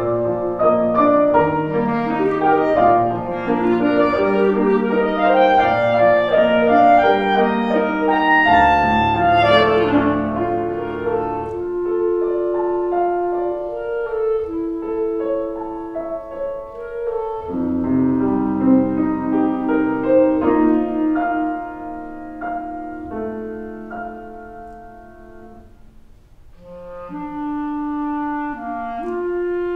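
Clarinet and piano playing a classical duet. The music dies away about 25 seconds in, then the clarinet starts a new phrase.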